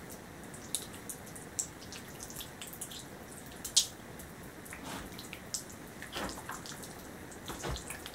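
Hands squeezing and kneading wet, soupy clay slurry: irregular wet squelches and dripping smacks, the sharpest about four seconds in.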